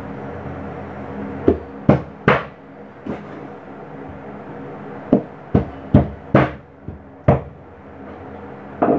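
Kitchen knife chopping raw chicken thighs on a cutting board: about ten sharp knocks, irregular, in a cluster early on and another a few seconds later, over a steady low hum.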